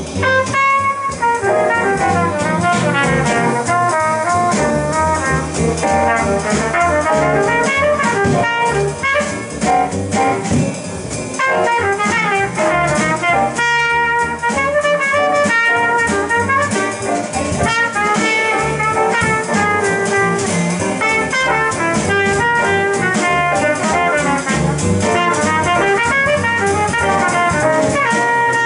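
Live small-group jazz: a trumpet carries the lead line over upright bass and drums, with the saxophone resting.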